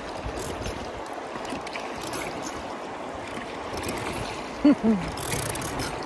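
Oars pulling through river water as an inflatable raft is rowed, over the steady rush of the current along the boat, with faint knocks from the oar mounts. About four and a half seconds in come two brief, loud, pitched sounds, each falling slightly in pitch.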